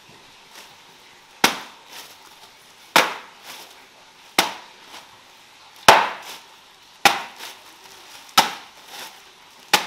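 A plastic bag of ice cubes slammed down on a tiled floor to break up the frozen lump: seven sharp cracking hits about one and a half seconds apart, each with a short rattle after it.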